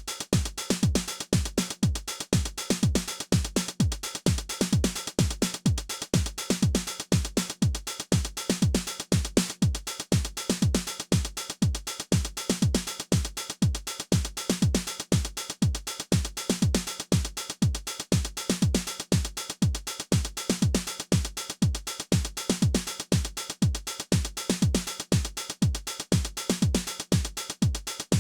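Behringer RD-9 drum machine, a TR-909-style analog/digital drum machine, playing a steady repeating beat: regular deep kick drums with a pitched drum near 200 Hz and busy hi-hats and cymbals on top.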